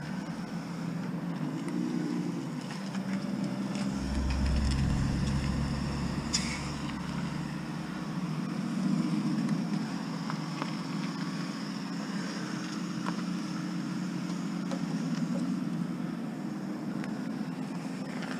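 Steady low hum of a motor vehicle engine, with a deeper rumble swelling about four to six seconds in. A few faint clicks come from a hand screwdriver working screws on a steel workbench.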